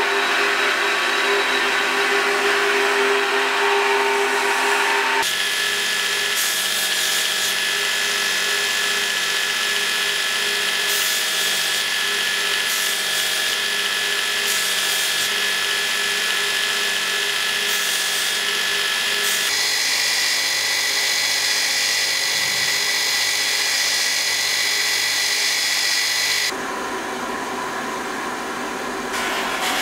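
Electric belt grinder and belt sander running steadily while a dagger's handle block is ground on the abrasive belt, the sound changing abruptly several times between takes. Near the end a bench grinder with a white wheel runs a little quieter as the handle is worked against it.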